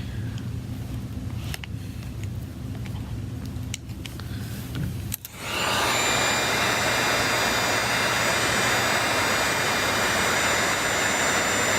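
A low hum with a few faint clicks, then about five seconds in a steady rushing noise, like a motor-driven blower or fan, switches on and keeps running.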